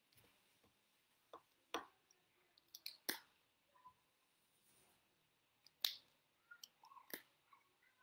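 Handling of whiteboard markers: a few short sharp clicks and taps, the loudest about six seconds in, from marker caps and the marker tip knocking on the board. Near the end come faint squeaks of a marker tip drawing on the whiteboard.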